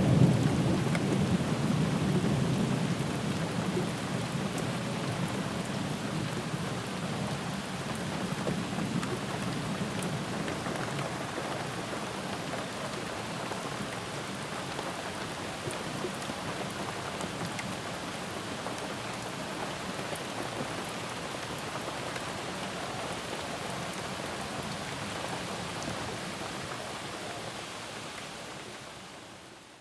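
Steady rain, with a low rumble of thunder at the start that dies away over the first several seconds. The rain fades out at the very end.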